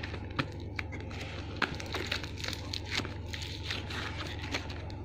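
Slime being squeezed and worked by hand, giving irregular small clicks and crackles, over a steady low hum.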